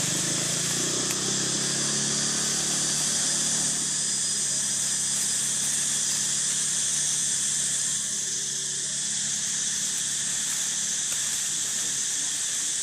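Steady high-pitched drone of a forest insect chorus, with a low hum of a few steady tones under it that fades out about four seconds in.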